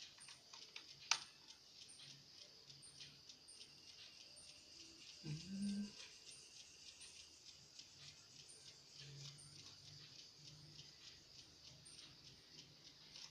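Faint clicks and small taps of parts being handled during laptop disassembly, with one sharp click about a second in and a brief low whine about five seconds in.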